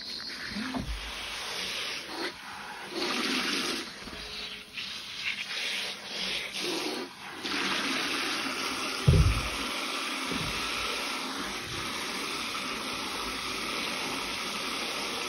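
Tap water running into a stainless steel bowl while a sponge full of scouring-cleanser foam is squeezed and rinsed under the stream; the water sound comes and goes with the squeezing for the first seven or so seconds, then runs steadily. A dull thump about nine seconds in.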